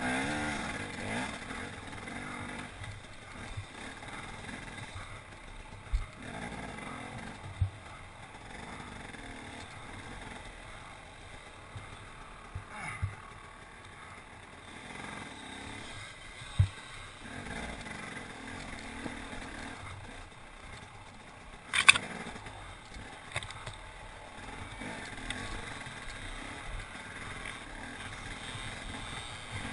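Enduro motorcycle engine running at low revs as the bike climbs a rocky trail, with loose stones clattering and several sharp knocks as it strikes rocks. The loudest knock comes about three-quarters of the way through.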